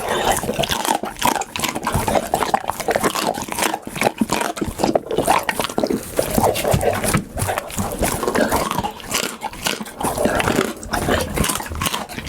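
Pit bull eating, mouth close to the microphone: wet chewing and smacking in a dense, irregular run of clicks with no real pause.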